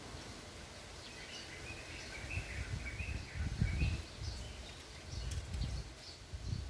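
Small birds chirping: a run of quick high chirps in the first few seconds, then scattered short notes, over an uneven low rumbling.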